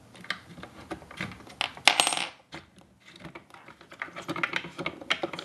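A small metal screw drops out and clatters onto a hard surface with a brief metallic ring about two seconds in, amid light clicks of the screw being turned out.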